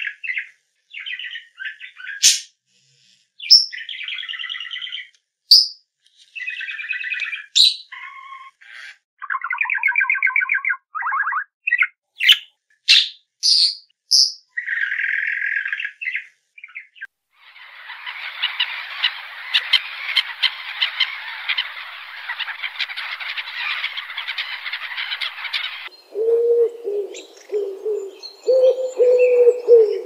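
Quail chicks peeping in short bursts of high chirps, building about halfway into a dense, continuous chirping chorus. Near the end this gives way to feral pigeons cooing low and repeatedly.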